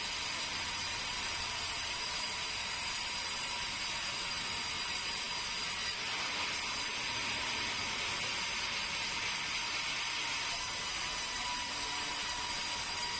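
Sawmill saw cutting keruing timber, giving an even, steady hiss with a faint constant whine.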